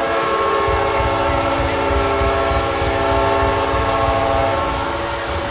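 An NHL-style goal horn blaring a steady, many-toned chord that cuts off about five seconds in, with a low rumble underneath.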